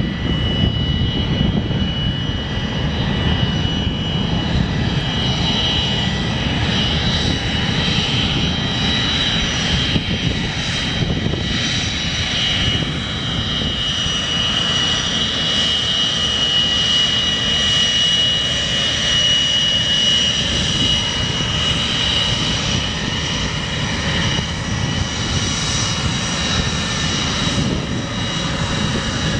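Douglas TA-4 Skyhawk's J52 turbojet at taxi power: a steady high-pitched whine over a constant rumble, the whine strongest around the middle.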